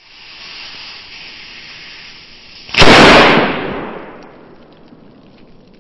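A firecracker's fuse hisses steadily, then the firecracker goes off with one loud bang a little under three seconds in. The bang is drawn out and fades slowly, as in slowed-down slow-motion playback.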